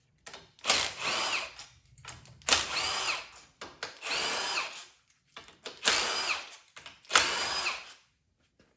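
Power drill/driver backing bolts out of a TH400 transmission's valve body in five short runs, its motor whining up and dropping off with each bolt.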